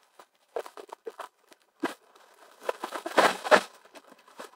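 Crinkling of plastic-wrapped parcels and rustling of a cardboard shipping box as the packed box is unpacked and tipped up, busiest around three seconds in.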